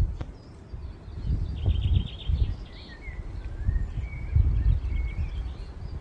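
Gusts of wind buffeting the microphone in irregular low rumbles, with small birds singing: a short rapid trill about a second and a half in, then scattered whistled notes.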